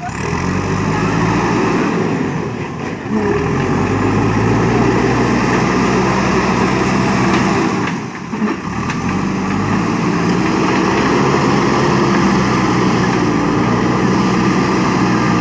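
JCB 3DX backhoe loader's four-cylinder diesel engine running hard under working load. Its note dips briefly and climbs back twice, about three and eight seconds in.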